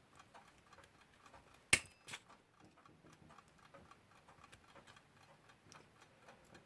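Faint, rapid, even ticking of a mechanical clock movement, with a sharp click about two seconds in and a softer one just after.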